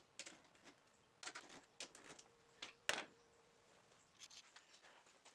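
Near silence broken by a few faint, irregular clicks, the clearest about three seconds in.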